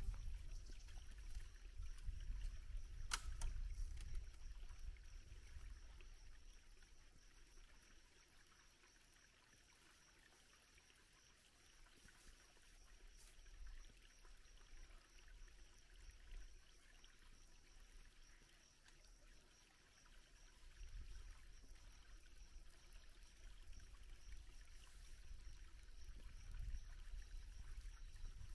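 Quiet outdoor ambience: a low rumble of wind on the microphone that comes and goes, strongest at the start and again near the end, under a faint steady high drone. One sharp click sounds about three seconds in.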